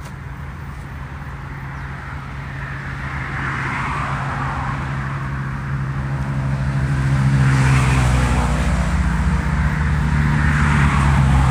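Road traffic passing close by: a vehicle's engine hum grows louder over the first several seconds and stays loud to the end.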